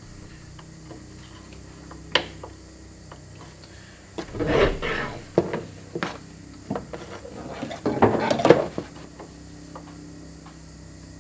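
A long rubber hose being handled and laid around an engine bay, rubbing and scraping against engine parts in two longer stretches, with a sharp click about two seconds in and several light knocks.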